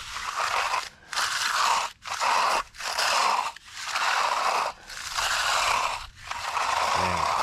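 A concrete finishing tool swept across a setting concrete slab in repeated strokes, about eight gritty scrapes, each under a second long with short pauses between.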